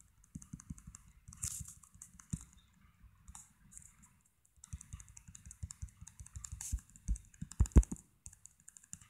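Quick light tapping and rubbing on a tablet touchscreen as a brush is dabbed on, many small ticks in a row, with a brief lull about four seconds in and a few harder taps near the end.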